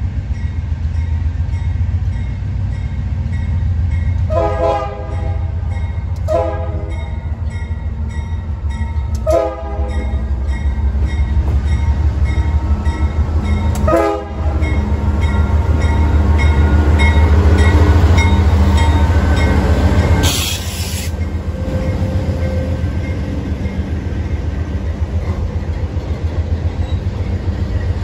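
CSX GE diesel freight locomotives approaching and passing, a steady low engine drone, with the lead unit sounding its air horn in four blasts between about four and fourteen seconds in. A brief hiss comes about twenty seconds in, and the second locomotive and the first freight car rumble past near the end.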